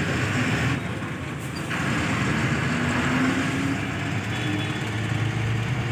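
Truck engine running as the truck drives along, heard from inside the cab with road noise; the engine note climbs a little about two seconds in, then holds.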